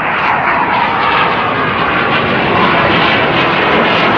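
Fixed-wing aircraft engine noise overhead: a loud, steady rushing sound with no breaks.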